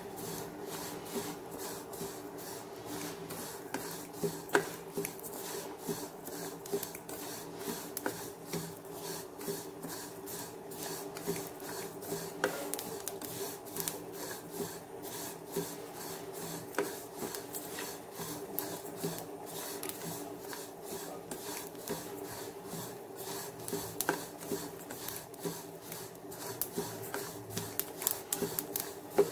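Black sesame seeds being dry-roasted and stirred in a pan: a continuous scraping and rustling through the seeds, with many small sharp crackles as the seeds begin to pop. A steady low hum runs underneath.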